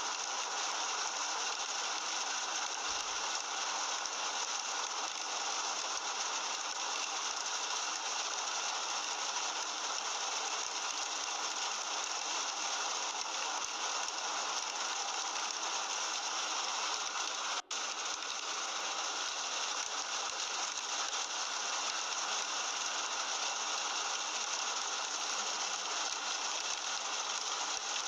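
Heavy rain falling steadily, an even rushing hiss, broken by a momentary gap about two-thirds of the way through.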